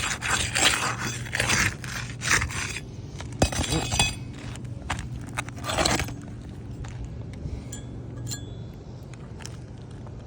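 Hand work on asphalt roof shingles: a run of short scrapes and metallic clinks as a shingle is nailed back down. Busy for about the first six seconds, then thinning to a few faint ticks.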